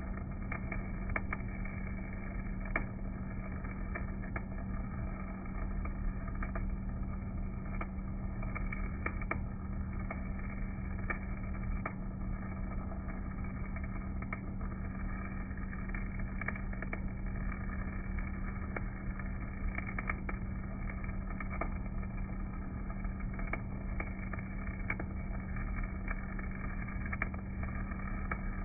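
Stick-welding arc from an EZ50 basic electrode on a rotary DC welder, crackling with frequent sharp, irregular pops over a steady low hum from the motor-generator set.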